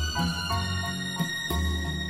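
Background music: sustained high notes over a low bass note that repeats about once a second.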